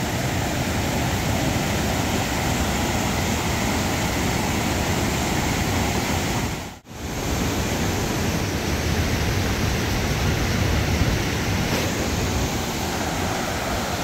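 Steady rushing of falling water from a waterfall, cutting out for an instant about seven seconds in.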